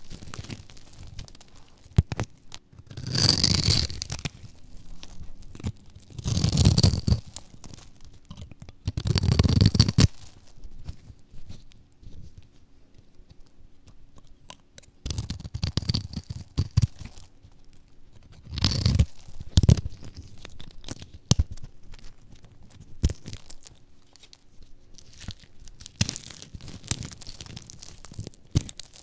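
Crunchy dry bar soap being sliced with a knife and the cut pieces crushed and crumbled by hand: crisp cracks and snaps. There are several loud crunching bursts a few seconds apart, with runs of small sharp clicks between them.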